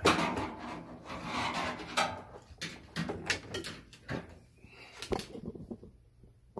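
Handling noise as the spring-wire tension ring is worked off the rubber door bellow gasket of a Whirlpool Duet front-load washer. A sharp knock right at the start, then scraping and rubbing, then a scatter of sharp clicks and rattles.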